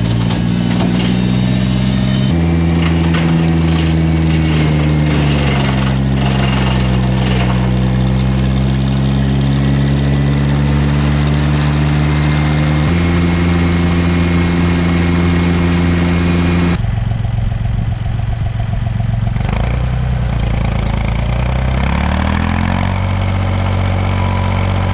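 Morbark wood chipper's flat-four engine running steadily, its speed changing abruptly a few times and rising near the end.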